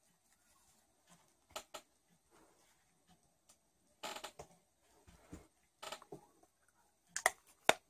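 Soft, scattered rustles and small knocks of hands handling a crocheted yarn doll wig, a little busier about four seconds in and again near the end.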